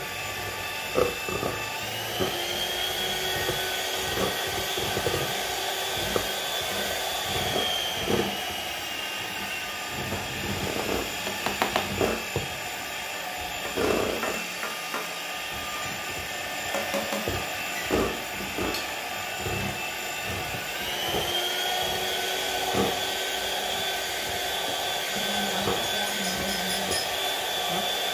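Electric hand mixer running in a stainless steel bowl, beating flour into whipped egg whites. The motor whines steadily, its pitch rising about two seconds in, dropping a few seconds later and rising again near the end as the speed is changed. Scattered sharp knocks come through in the first two thirds.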